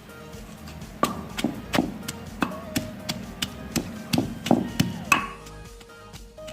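Pestle pounding in an imam dasta, a metal mortar, about ten ringing strikes at an uneven pace of roughly two a second, starting about a second in, crushing salt and garlic for a curry paste. Faint background music runs underneath.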